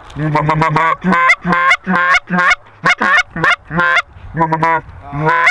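Homemade PVC goose call with a zinc reed, blown in a rapid run of short honks, about four a second, each note bending in pitch.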